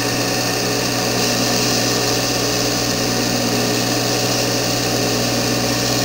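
Big belt sander running steadily, a low motor hum under a bright hiss, as the tip of a homemade tubular lock pick is held against the belt to grind the pins round and even.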